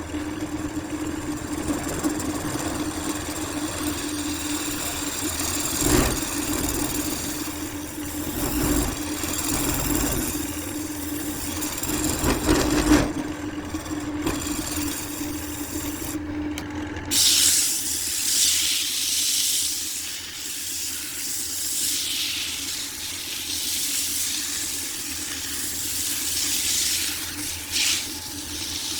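Wood lathe running with a steady hum and a couple of knocks. About two-thirds of the way through, the hum drops away and a loud, steady hiss takes over.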